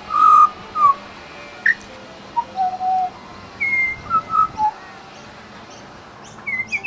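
Australian pied butcherbird singing: a phrase of clear whistled notes, some sliding up or down in pitch, then a pause of about two seconds before it starts again near the end.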